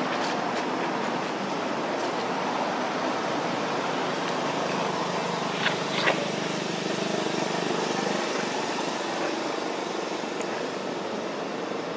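Steady outdoor background noise, an even hiss with no distinct source, broken by two short sharp sounds a little past halfway.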